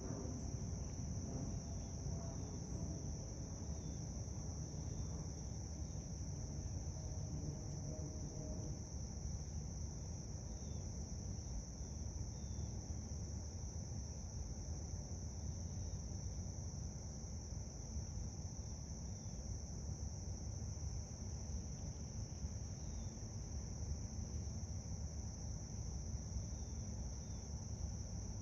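Steady, high-pitched chorus of insects trilling without a break, over a low background rumble.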